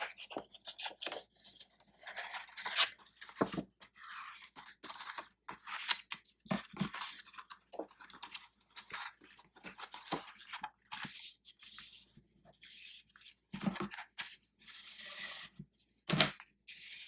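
Paper card stock being handled, folded and creased: irregular rustling and crinkling, with a few dull knocks.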